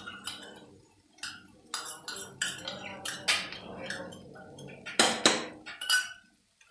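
A spoon clinking and scraping against a cooking pan in irregular strokes as a thick amla laddu mixture is stirred and ghee is added. The loudest strokes come about five seconds in.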